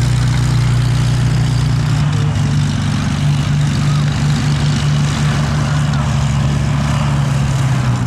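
Piston propeller-aircraft engine running steadily at an even, low pitch.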